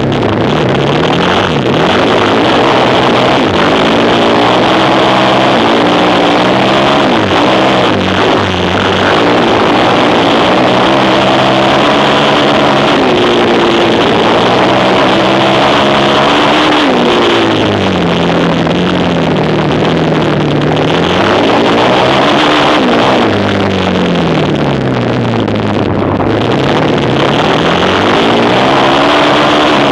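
Quad bike engine revving hard under racing, its pitch repeatedly falling and then climbing again every few seconds.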